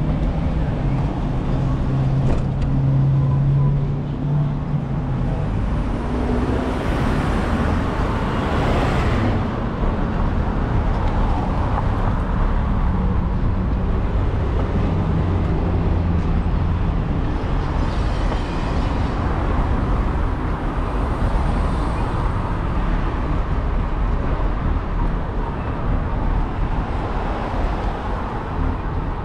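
Road traffic on a city street: motor vehicles running and passing in steady noise, with one vehicle swelling louder about seven to nine seconds in.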